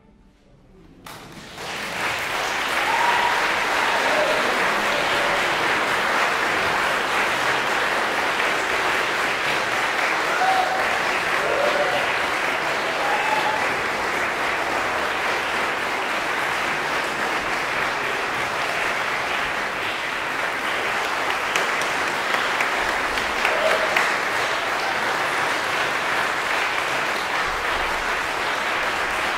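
About a second of silence, then audience applause that builds within a couple of seconds and carries on steadily, with a few short calls from the listeners.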